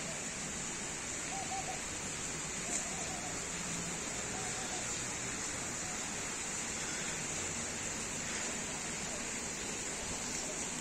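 Steady outdoor park ambience: an even rushing hiss, with faint distant voices a few times in the first half.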